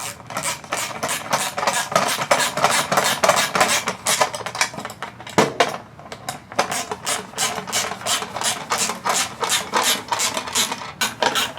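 License plate screws and nylon lock nuts being tightened with a 10 mm socket and a Phillips screwdriver: a fast, steady run of sharp clicks and metal scraping, with a short break about five and a half seconds in.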